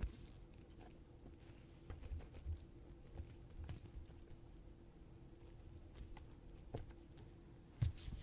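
Faint, scattered clicks and light taps of small metal watch parts and tools being handled as a plate is fitted onto a fusee pocket watch movement, over a faint steady hum.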